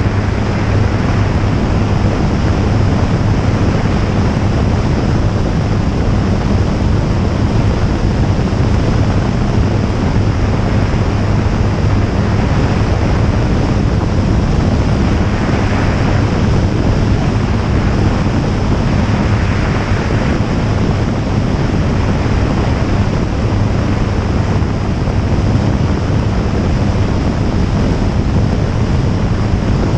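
Jabiru J160 light aircraft in flight: its four-cylinder air-cooled Jabiru 2200 engine and propeller run at a steady drone, buried in heavy wind rush on an outside-mounted camera microphone. The wind noise swells briefly twice around the middle.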